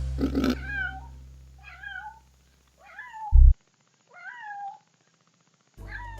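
Kitten meowing four times, high meows that rise and fall in pitch, about a second apart. A short low thump sounds between the third and fourth meow.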